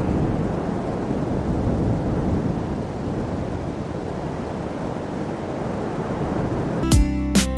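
Steady rushing outdoor noise, such as surf or wind, for most of the time. Near the end, plucked acoustic guitar music starts abruptly.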